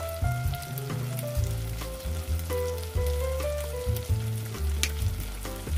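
Tofu cubes frying in a pot, sizzling with scattered small crackles, over background music.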